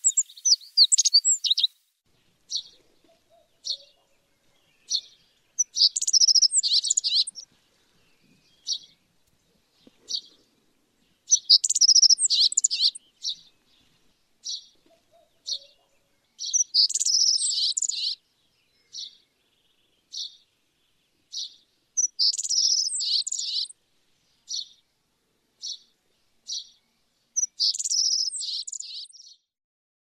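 Godlewski's bunting singing: a high, jumbled song phrase of about two seconds, repeated roughly every five and a half seconds. Between phrases come single short, high call notes, about one a second.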